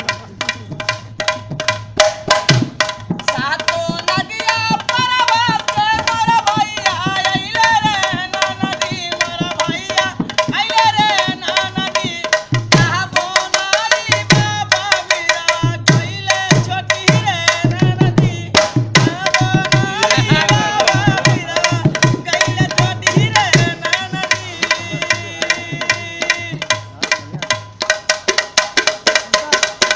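A dholak played in fast, dense rhythm, its bass head giving strokes that bend down in pitch, over a wavering melody line and a steady held note.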